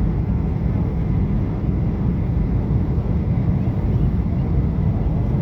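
Steady jet engine and airflow noise inside an airliner's cabin as it descends to land, heavy in the low end.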